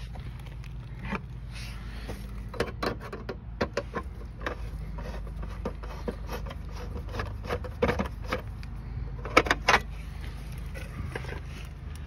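Repeated clicks, clacks and knocks as the cover is worked off an outdoor air-conditioner electrical disconnect box, loudest around eight and again around nine and a half seconds in, over a steady low hum.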